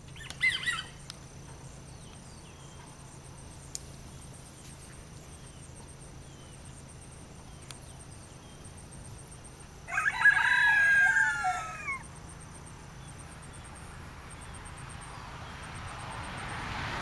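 An Easter Egger rooster whose crow has been reduced by decrowing surgery crows once, about ten seconds in, a single crow of about two seconds. A brief shorter call comes near the start.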